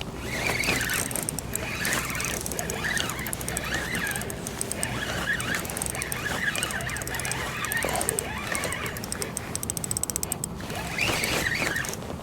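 Fishing reel clicking and ratcheting during the fight with a hooked striped bass, with a faster run of fine ticks about eight seconds in.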